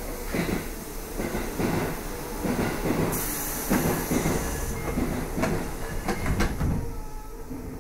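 Tokyo Metro 7000 series train heard from inside the car, its wheels and bogies knocking over rail joints and points about twice a second. A brief high hiss comes in about three seconds in and stops near the five-second mark.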